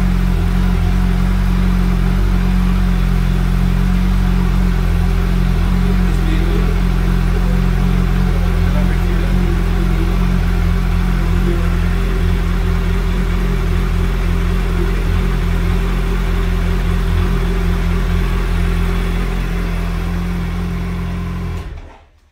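2022 Suzuki Hayabusa's 1340 cc inline-four engine running steadily through its exhaust, cutting off near the end.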